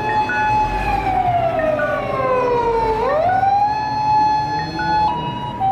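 Fire truck siren wailing: a held tone that slides slowly down over about two seconds, then sweeps quickly back up about three seconds in and holds again. Short higher tones repeat above it.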